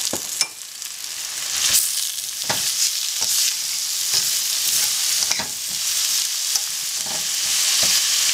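Sliced vegetables sizzling in hot oil in a stainless steel wok, the hiss growing over the first couple of seconds. Metal tongs toss them, clicking and scraping against the pan about once a second.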